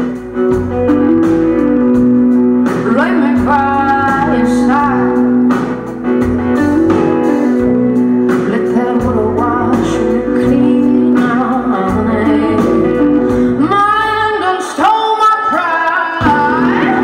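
Live band playing blues-tinged music with guitar, keyboards and drums, a woman singing lead over it in two phrases, heard from the audience in a concert hall.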